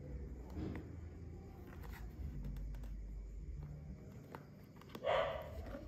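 Faint handling of a product and its packaging: a few light clicks and taps over a low hum, with one brief rustle about five seconds in.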